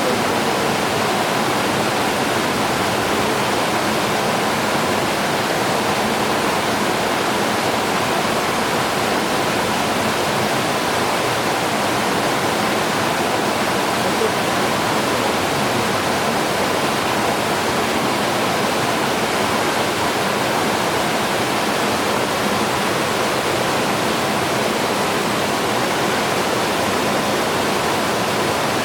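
Rushing water of the mountain stream at Amedaki waterfall, a steady, even rush with no breaks.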